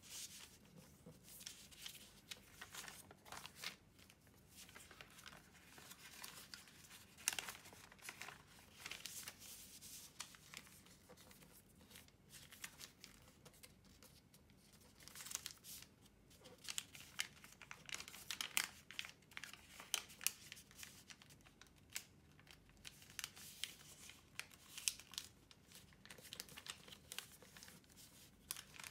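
A large square sheet of origami paper being folded and creased by hand: soft rustling and crinkling as the paper is turned and pressed flat, broken by frequent sharper crackles of creases being made.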